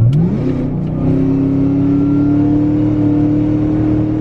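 Engine of a modified, non-stock family car under hard acceleration in a roll race, heard from inside the cabin. The revs climb sharply in the first half second, then pull steadily and slowly higher through the gear.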